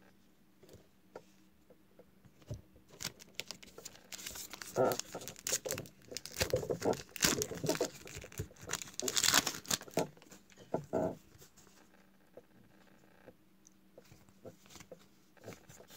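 A Topps WWE Heritage trading-card pack wrapper being torn open and crinkled by hand: a run of crackles and rips that is loudest just past the middle. It is followed by fainter rustling as the cards are handled.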